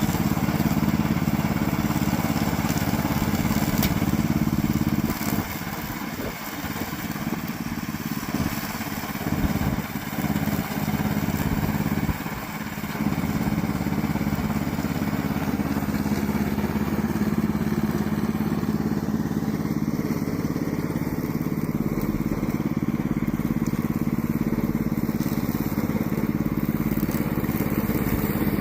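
Petrol engine of a remote-control slope mower running steadily, its level dipping a few times between about five and thirteen seconds in.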